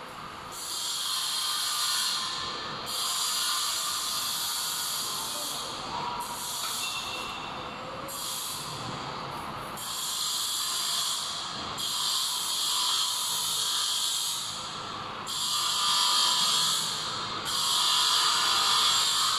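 Automatic chain link fence machine at work: a high hissing, scraping noise that comes in surges of two to three seconds with short breaks between them.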